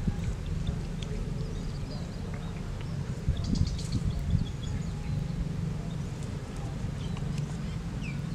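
Outdoor ambience: a steady low rumble of wind on the microphone, with a cluster of short, high chirps about three and a half seconds in.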